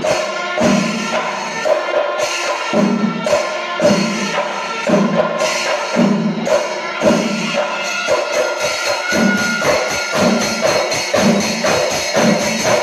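Festival percussion music: drums with jingling cymbals, beating about once a second.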